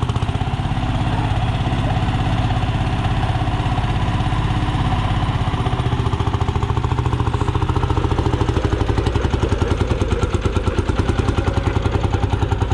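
Antique Lanz 24 tractor's single-cylinder engine running at low revs while driving, a fast even train of exhaust beats. Each beat puffs smoke from the original silencer, and the beats grow sharper and louder about two-thirds of the way through.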